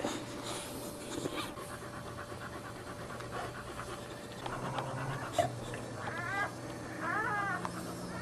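Boxer mother dog panting rapidly just after whelping, with a few short high whimpering cries near the end.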